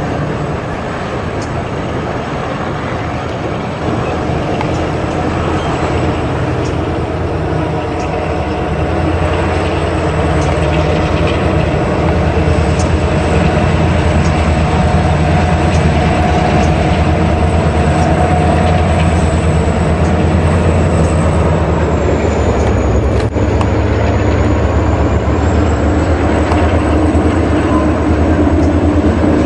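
Battery-powered toy locomotive's small electric motor and plastic gears running steadily as it pulls its cars around a plastic track, a continuous whir with a fast rattle of wheels on the rails.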